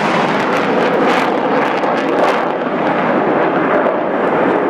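Jet engines of a Panavia Tornado in a low flypast, a loud rushing roar as it climbs away. The hiss and highs thin out about halfway through as it recedes.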